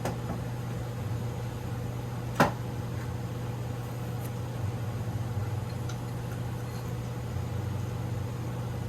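A steady low hum runs underneath one sharp click about two and a half seconds in. The click fits a click-type torque wrench breaking over at its set torque while bolts on a Tomos A35 moped engine are tightened to about 20 foot-pounds.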